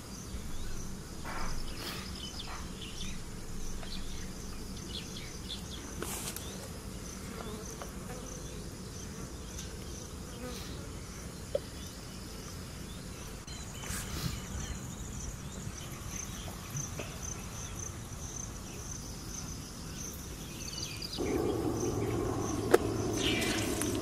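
Insects chirping in a steady, evenly repeating pulse, with a few light clicks and rustles. About three seconds before the end, a louder steady rushing noise comes in.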